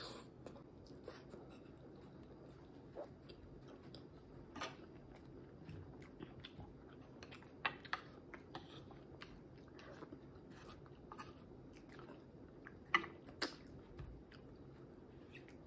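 Close-miked mouth sounds of a person eating a soft fried egg: quiet chewing with scattered wet smacks and clicks, a few sharper ones about 8 and 13 seconds in.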